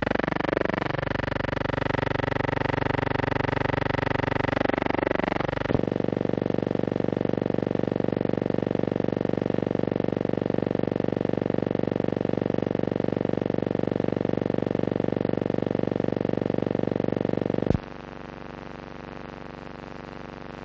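Steady hum with many overtones and a fine rapid flutter, changing character abruptly about six seconds in and dropping sharply in level near the end. It is transfer noise on a silent film's soundtrack, not sound from the scene.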